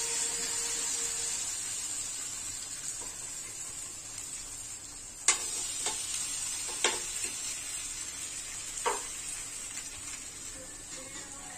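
Cabbage and corned beef fritters sizzling in oil on a flat frying pan as they are flipped, with a few sharp clinks of a metal fork and spatula against the pan in the second half.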